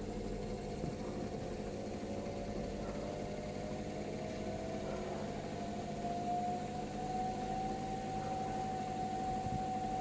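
Brandt front-loading washing machine running, its brushed motor turning the drum with a steady hum and a whine that rises in pitch about four to six seconds in, then holds steady. The motor is running again on newly fitted carbon brushes.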